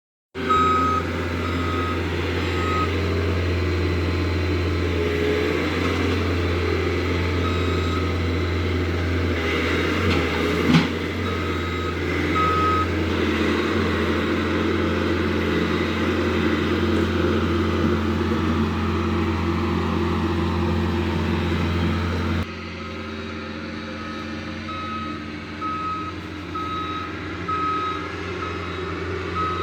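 Heavy diesel machine or truck running steadily while its backup alarm beeps in short runs; the beeps come more regularly near the end. One sharp knock about eleven seconds in.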